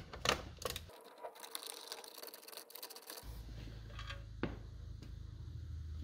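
Faint clicks and light knocks from a ratchet and 9/32 socket backing out the screws that hold the horn pad on a steering wheel, in a few scattered bursts.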